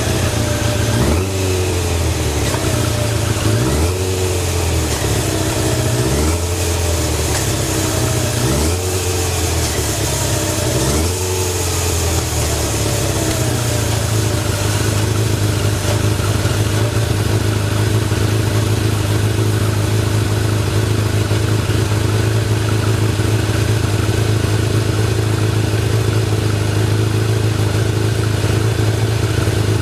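Kawasaki ZX-10 inline-four engine revved in about five short throttle blips, each rising and falling in pitch, over roughly the first twelve seconds, then settling into a steady idle. The idle is the stable, noise-free running the seller advertises.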